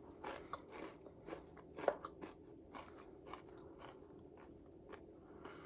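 A person chewing crunchy breaded fried pickles close to the microphone: a run of sharp crunches and wet chewing, thinning out over the last couple of seconds.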